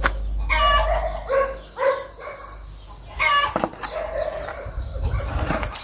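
Domestic hen cackling in runs of short, repeated calls: the egg song a hen gives after laying an egg.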